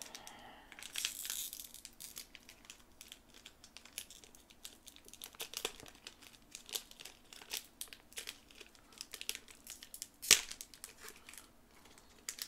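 Foil Digimon card game booster pack crinkling and tearing as it is opened by hand, a steady run of small crackles with one sharp snap about ten seconds in.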